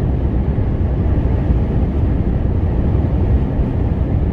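Steady low rumble inside a moving lorry's cab: engine and road noise.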